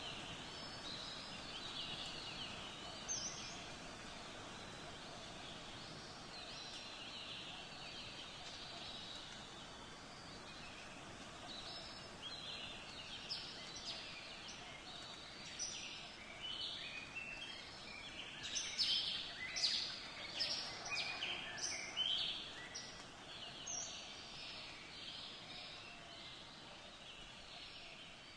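Birds chirping and calling over a faint steady background hiss, with the calls thickest in the middle of the stretch.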